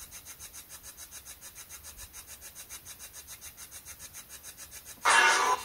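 Radio-sweep spirit box hissing in quick even pulses of static, about eight a second, with a louder burst of static about five seconds in lasting about half a second.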